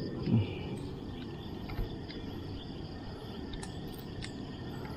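Night insects, crickets, chirring steadily over a low, even background rumble, with a brief low vocal sound a moment in and a few faint ticks.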